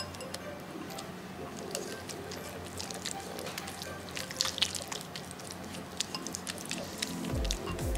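Silicone spatula mashing softened garlic-herb butter and olive oil in a glass bowl: wet squishing with scattered small clicks and scrapes against the glass. Background music with a low bass line comes in near the end.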